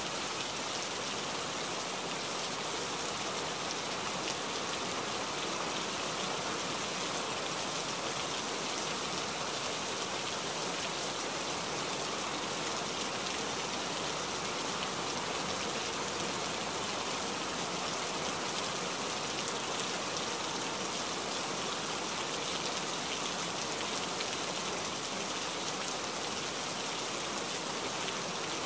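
Steady rain, an even hiss that runs on unchanged.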